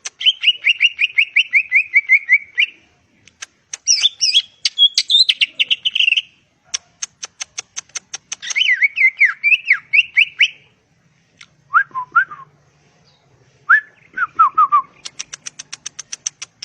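Green leafbird (cucak ijo) singing: a string of loud, fast trilled and warbling phrases with brief pauses between them, mixed with quick runs of sharp high ticks.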